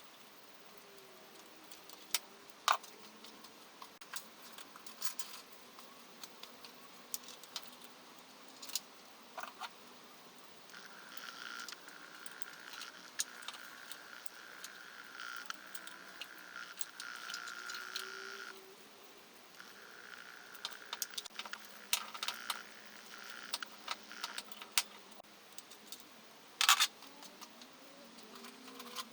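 Light metallic clinks and clicks of hand tools and engine parts being handled, with a few sharper knocks near the end. A steady high whir runs for about eight seconds in the middle, stops briefly, and returns for about five seconds.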